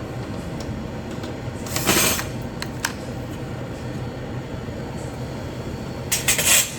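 Steady hum of a commercial refrigerator's condenser unit running, with a short noisy burst about two seconds in, a couple of light clicks, and a louder burst of noise near the end.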